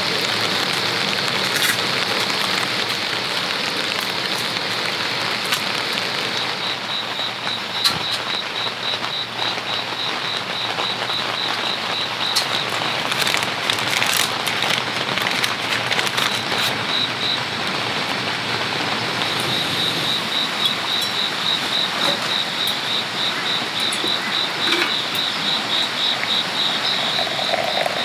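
Steady rain falling. About seven seconds in, a high, rhythmic chirping call of about four pulses a second starts up over it, stops briefly after about ten seconds, and starts again. A few faint clicks and crinkles come in the middle.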